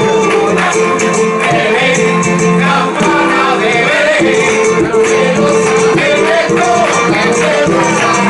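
A man sings a villancico-style festive song into a microphone, accompanied by strummed Spanish guitar and a steady beat of hand clapping (palmas).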